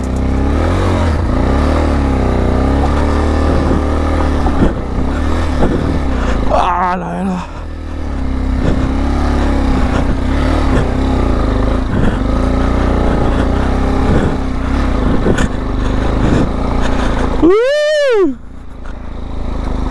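Motorcycle engine running steadily under load on a steep off-road climb, with a continuous low rumble. Near the end there is a short whistle-like tone that rises and then falls.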